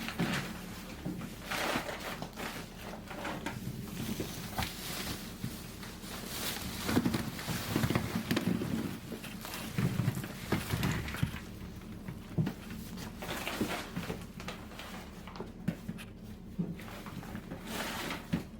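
Irregular rustling and knocking of potatoes being handled and laid out, over a steady low hum.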